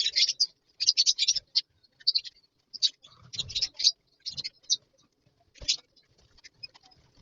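A colony of lovebirds chattering in shrill, high-pitched chirps that come in quick clusters with short pauses between, with a few sharp clicks.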